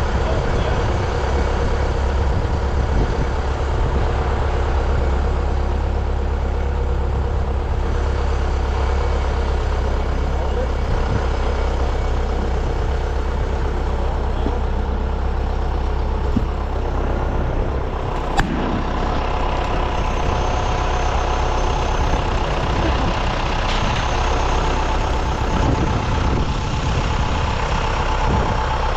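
Heavy diesel engine of farm machinery running steadily at a constant speed, with a single sharp click about eighteen seconds in.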